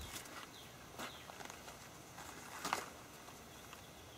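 Quiet outdoor background with a couple of soft rustling taps, one about a second in and a louder one near three seconds in.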